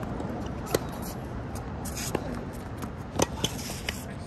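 Tennis rally on a hard court: sharp pops of the ball off racket strings and off the court, a second or so apart, the loudest about a second in and past the three-second mark.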